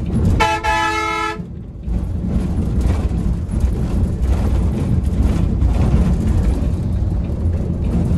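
A vehicle horn sounds once, a single blast about a second long, over the steady low rumble of a moving road vehicle.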